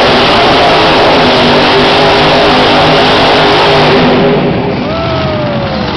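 Iron Warrior monster truck's engine running hard at high revs as the truck spins donuts, then easing off about four seconds in.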